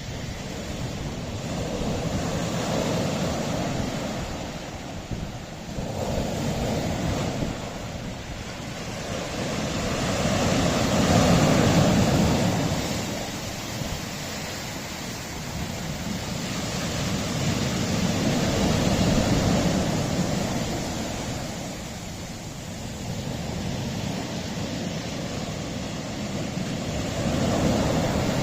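Sea waves washing onto a rocky shore, the surf swelling and fading in slow surges every several seconds, loudest about eleven seconds in.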